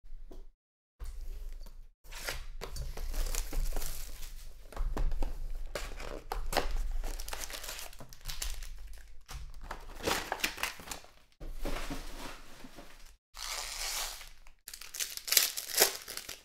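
Foil wrappers of Panini Prizm football card packs crinkling and tearing as they are handled and ripped open, in several bursts separated by short pauses.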